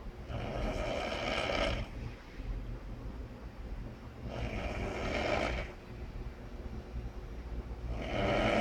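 A person snoring: three long, rasping snores about four seconds apart, the last starting near the end.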